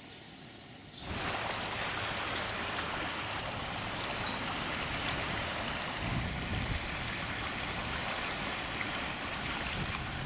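Small waves lapping and washing on a stony lakeshore, a steady rushing sound that starts about a second in.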